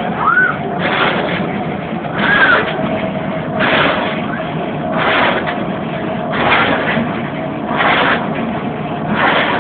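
Clothes dryer running, with a steady hum and a surge of noise repeating about every second and a half. Two brief squeaks come in the first few seconds.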